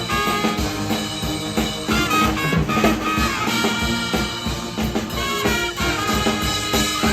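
Brass-and-drums pep band playing, with horns holding notes over a steady drum beat.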